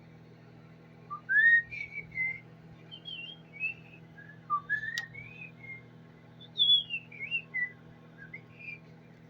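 Whistling: a string of quick notes gliding up and down, loud in short spurts, over a steady low hum, with one sharp click about halfway through.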